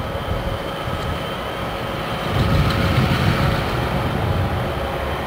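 Diesel-electric locomotive running as it creeps toward the listener, a deep pulsing engine rumble with faint steady whining tones above it, growing somewhat louder about halfway through.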